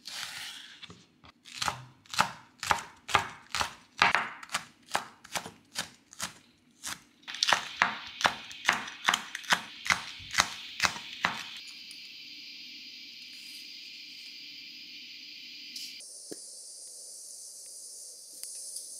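Chef's knife chopping green onion on a wooden cutting board: steady strikes about two to three a second that quicken slightly, then stop about eleven seconds in. A steady high hiss follows.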